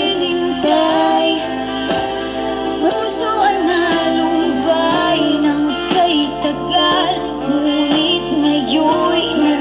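Karaoke: a sung voice through a microphone over a music backing track, the melody bending from note to note.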